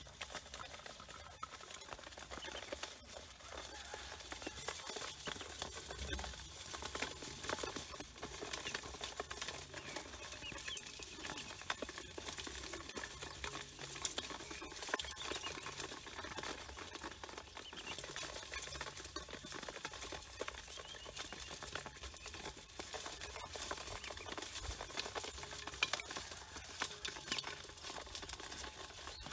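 A crowd of ducklings scrabbling and pecking in a metal bowl: a dense, constant patter of small taps and scratches from bills and feet on the metal, with a few faint peeps.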